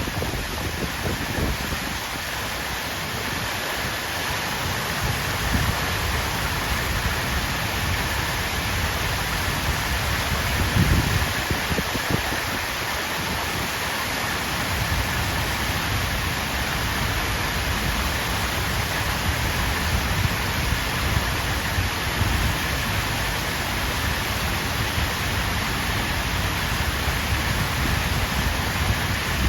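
Water fountain splashing steadily, a continuous hiss of falling water, with a low rumble near the start and again about eleven seconds in.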